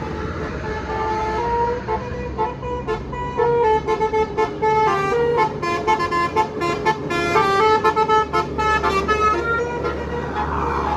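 Bus 'telolet basuri' multi-trumpet musical air horn playing a quick melody of short, stepped notes over a low engine rumble. The notes start softly about a second in, get louder and busier through the middle, and stop shortly before the end.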